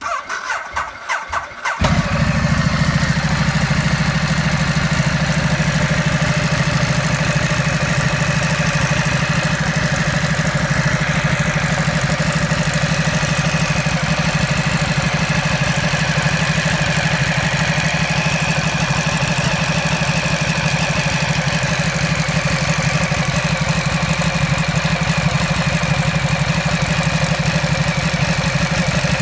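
Ducati Multistrada 1200's 90-degree V-twin being cranked by its starter for about two seconds, then catching and settling into a steady idle. The owner reports a metallic rattle from the lower right side of the engine.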